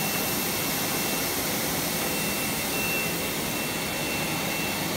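Five-sided CNC panel drilling machine running between jobs: a steady airy hiss with a thin, constant high whine.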